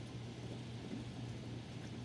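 Steady rain falling in a thunderstorm, a soft even hiss with faint scattered drips, over a constant low hum.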